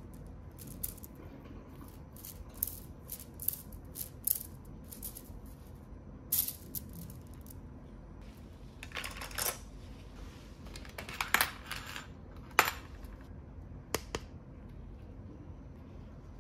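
Toy plastic bead necklace handled in the hands, the beads clicking and clattering against each other in scattered short runs, with a few sharper clacks.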